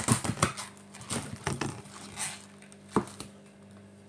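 A head of cabbage being split and its leaves torn apart by hand: a run of crackling snaps over the first couple of seconds, then one sharp snap about three seconds in.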